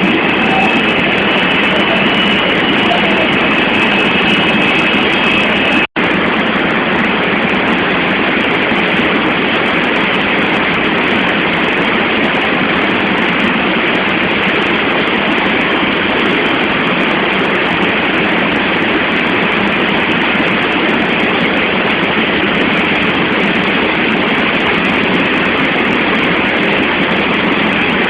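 Floodwater rushing in a steady, unbroken noise. It cuts out for an instant about six seconds in.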